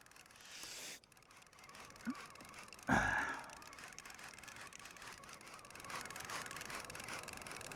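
A single sudden thump about three seconds in, over faint, steady water and wind noise at sea.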